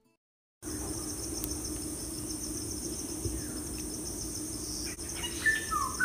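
After a brief silence, a steady high-pitched chirring like crickets sets in over a low steady hum, with a few short falling chirps near the end.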